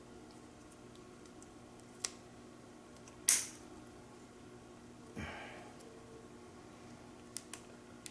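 Plastic reflector brackets of a GE 24792 attic antenna being clipped together by hand: a few small clicks and one loud snap about three seconds in, then a brief scrape of plastic and some faint ticks near the end.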